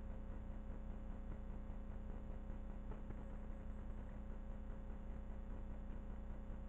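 Steady low electrical hum with a faint hiss, the recording device's own noise; nothing else stands out.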